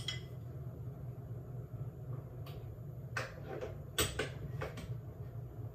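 Metal tongs clicking and knocking against a glass container and a frying pan as raw chicken thighs are laid into the pan. There are a few sharp clicks from about two and a half to five seconds in, over a steady low hum.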